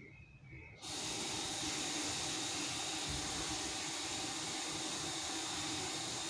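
Tap water starts running about a second in and keeps running as a steady, even hiss, as for washing at a sink.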